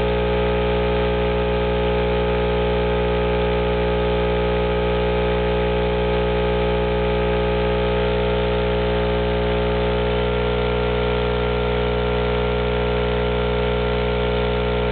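12-inch RD Audio Heavyweight subwoofer wired straight to a wall socket, putting out a loud, steady mains hum and buzz, its cone driven by raw AC in a blow-up test. Part of the middle buzz thins out about two-thirds of the way in.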